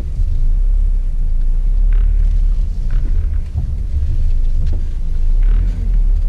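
Low steady rumble of a car's cabin with the engine running, with a few faint clicks.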